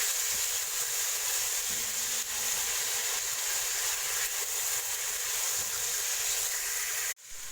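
Minced garlic sizzling steadily as it fries in oil and ghee over low heat. Near the end the sizzle cuts off abruptly and comes back quieter.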